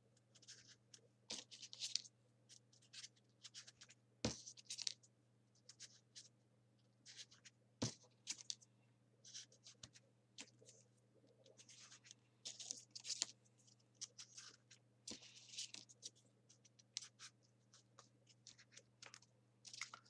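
Folded printer-paper 3D origami pieces rustling and scratching as they are handled and pushed one after another into the pockets of the paper model. The sound comes in short, irregular rustles with a few sharp clicks, over a faint steady low hum.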